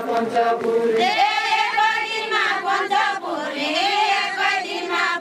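Women singing a Deuda folk song in chorus without instruments: a high line of long, wavering held notes comes in about a second in, as a lower sung line ends.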